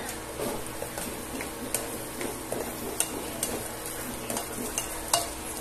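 Tomatoes and onions sizzling in oil in a stone-coated frying pan as a spatula stirs them. The spatula scrapes and taps against the pan several times, the sharpest tap near the end.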